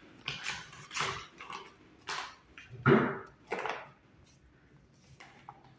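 Paper flour bag being opened and handled: a run of irregular crackles and rustles of stiff paper over about four seconds, then quieter as the bag is tipped.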